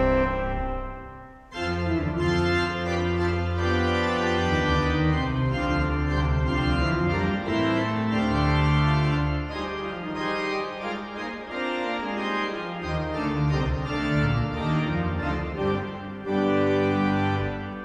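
The 1911 Forster & Andrews / 1951 Compton pipe organ of Hull City Hall playing a fanfare: sustained full chords over deep pedal notes. About a second in, a chord breaks off and dies away before the playing resumes, and near the end a loud chord starts suddenly.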